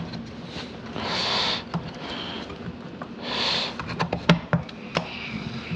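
Two short hissing sniffs, about two seconds apart, then a cluster of sharp clicks and knocks from small plastic vacuum-nozzle parts being handled.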